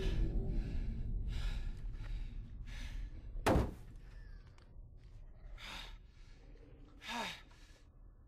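A man's heavy, ragged breathing, with gasps about every second and a falling sob near the end. A single sharp thunk about three and a half seconds in is the loudest sound.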